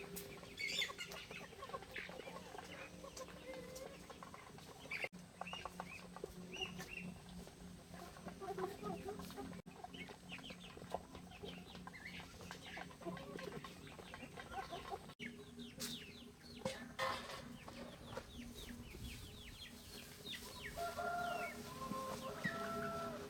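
Chickens clucking, with many short calls, over a steady low hum.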